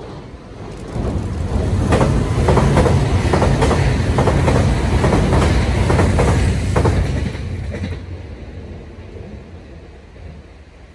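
Nankai 50000 series Rapi:t electric express train passing over a steel girder bridge: a low rumble builds, peaks with a quick run of wheel clacks over the rail joints, then fades away as the train leaves.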